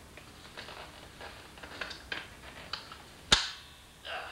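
Spring-loaded seatback of a removed Pontiac Fiero seat, released at its recline actuator, snapping over with one sharp bang about three seconds in, after a few light knocks and rustles as the seat is handled. The bang is the force of the seat's assist spring, which is why the spring should be taken off before working on the seat.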